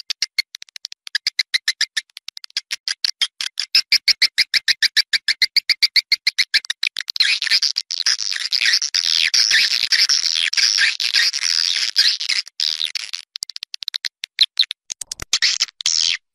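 Recorded swiftlet calls of the kind played as an outdoor lure to draw swiftlets to a nesting house. A fast, even train of short chirps runs at about ten a second, then from about seven seconds in gives way to denser, overlapping twittering, which breaks into shorter bursts near the end.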